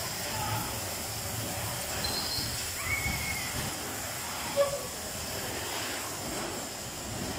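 Bumper cars running around an arena: a steady, hissing rumble of the ride, with a few short squeaks and one brief sharp sound about four and a half seconds in.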